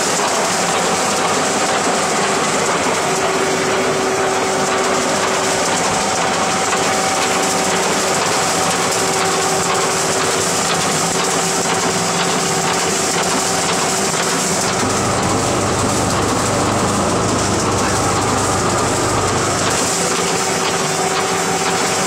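A trommel screen running: the electric drive motor and rotating screen drum make a steady mechanical noise with a constant hum while soil tumbles through and falls out. A deeper hum joins for about five seconds about two-thirds of the way in.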